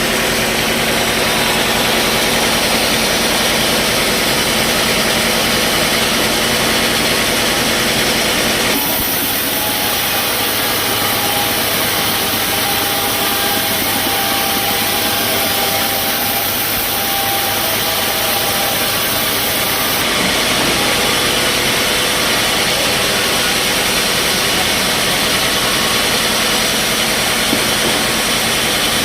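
Sawmill machinery running with a loud, steady mechanical noise. From about nine to twenty seconds in, the sound changes to a brighter hiss with a faint whine, then settles back.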